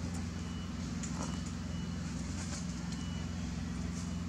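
Steady low hum of a motor running, with a faint thin high-pitched tone coming and going over it.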